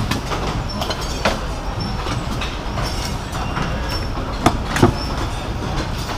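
Cigar factory rolling floor: a steady low rumble of room noise with scattered clicks and knocks from the workbenches, and a pair of louder knocks a little over four seconds in.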